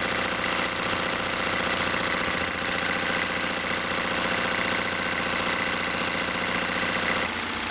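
Luton Bowman PW202 overtype toy steam engine running steadily on live steam, a fast, even mechanical beat; it runs smoothly and is well balanced.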